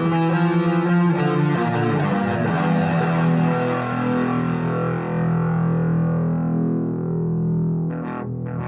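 Electric guitar played through a Vox Valvetronix AD15VT modelling amp: a run of picked notes, then a low note held, ringing out and fading over the last few seconds. A few short clicks come near the end.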